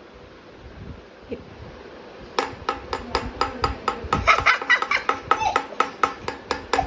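Golden retriever puppy eating dry kibble from a bowl: after a quiet stretch, rapid sharp crunches and clinks start about two and a half seconds in, several a second.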